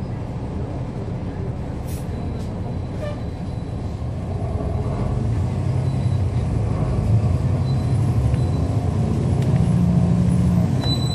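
Cabin sound aboard a 2011 NABI 40-SFW transit bus: its Cummins ISL9 inline-six diesel and ZF Ecolife six-speed automatic transmission running, with a low drone that grows louder from about five seconds in as the bus pulls harder.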